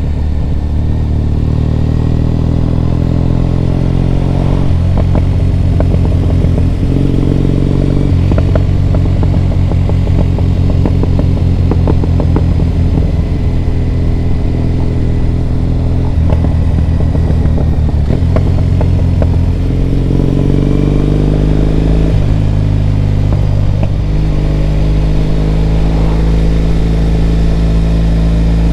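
Triumph Bonneville T100's parallel-twin engine running on the move. The engine note climbs and then changes pitch in steps several times, as it would through gear changes.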